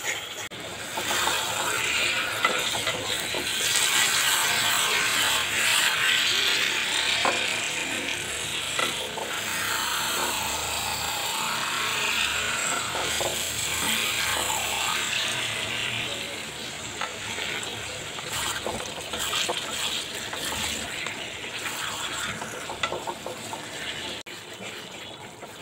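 Meat and masala paste sizzling in a kadai, stirred with a wooden spatula, with scattered scrapes and clicks of the spatula against the pan. The sizzle is strongest in the first half and eases off later.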